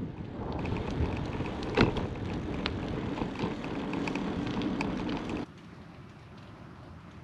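Mountain bike rolling on asphalt with wind buffeting the mounted camera's microphone, tyre hiss and scattered clicks and rattles from the bike, and one sharp knock a little under two seconds in. About five and a half seconds in, the noise drops suddenly to a quiet outdoor background.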